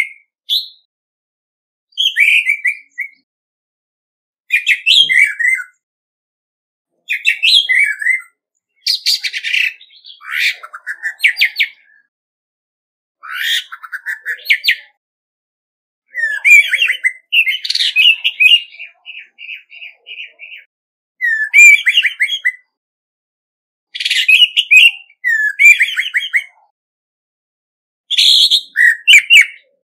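Male orange-headed thrush singing its territorial song: short phrases of whistled and warbled notes, most about a second long, separated by pauses of one to two seconds, with a longer run of notes near the middle.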